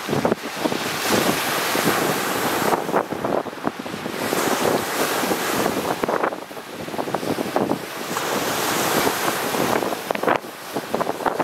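Lake Superior waves breaking on a rocky, pebbly shore, the surf swelling and easing every few seconds with short crackles through it, and wind buffeting the microphone.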